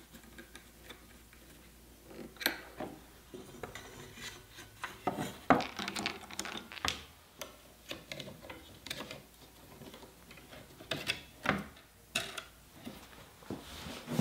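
Aluminium bars and screws of a SOSS 218 router-guide jig being assembled on a wooden bench: a screwdriver turning a screw, metal parts sliding, clinking and knocking, with scattered irregular taps and clicks.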